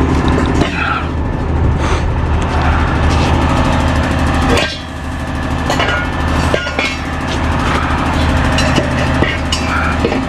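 Tow truck engine running steadily, with several sharp knocks over it.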